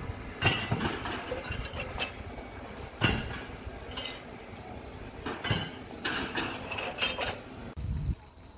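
Construction-site metal clanking: about ten irregular sharp metallic clanks and knocks over a low steady rumble.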